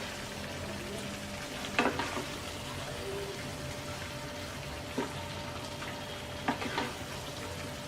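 Eggplant pieces sizzling in a pan of oily spiced masala, with a cooking spoon knocking against the pan three times as they are stirred.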